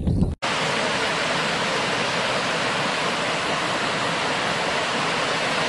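Water pouring over a low stone weir and down a rocky channel: a loud, steady, even rush. A brief low rumble cuts off abruptly about half a second in.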